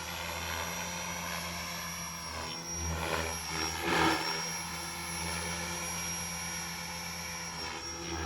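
Beam Archon 500 electric RC helicopter in 3D aerobatic flight. Its rotor and motor whine runs steadily under a high electric-motor tone, and the sound swells and sweeps briefly about four seconds in.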